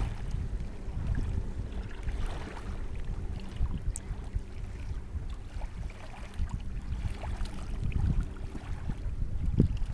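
Wind buffeting the microphone: a gusty low rumble, with a short low thump near the end.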